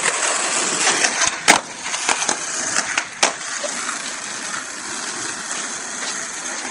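Skateboard wheels rolling over pavement with a steady hiss, with several sharp clacks in the first three seconds, the loudest about a second and a half in.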